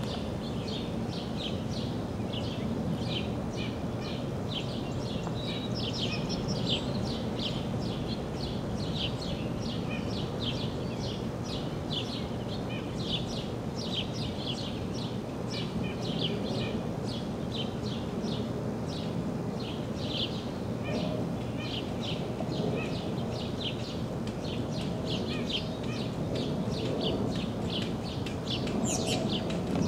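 Steady outdoor background noise with a long, even series of short high chirps, about three a second.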